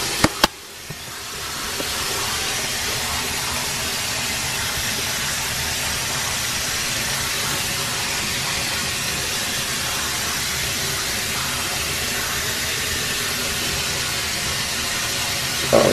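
Two sharp clicks just after the start, then running water: a steady, even hiss with no change in pitch.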